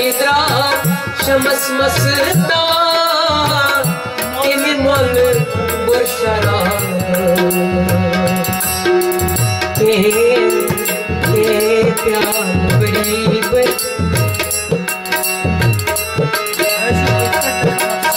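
Music from a Kashmiri song: a melody line that glides up and down over the first several seconds, then holds steadier notes, over a steady drum rhythm.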